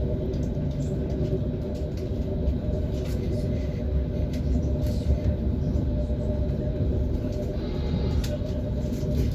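ES1P 'Lastochka' (Siemens Desiro RUS) electric train running at speed: a steady rumble of wheels on the rails, with now and then a faint click or knock.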